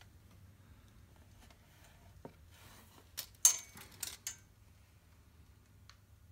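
A few short clicks and knocks from a tape measure being handled against a steel hand-truck frame while measuring, bunched together three to four seconds in, with a single faint tick before and after.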